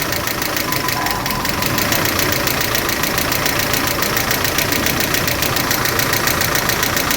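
Chevrolet Aveo 1.6 four-cylinder engine idling steadily with a fast, even valve tapping (taqueteo) over it, the valve-train tick that comes from poor lubrication; the engine is running with a cleaning fluid freshly added to the oil.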